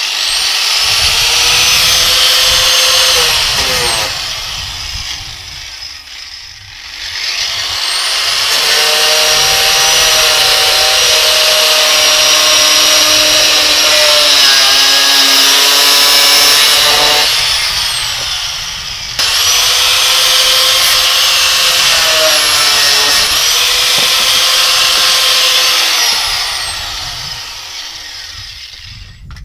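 Corded angle grinder grinding away plastic inner wheel-arch lining, in three long runs. Each run starts with a rising whine and winds down with a falling whine when the trigger is let go. The whine dips in pitch for a while during the long middle run.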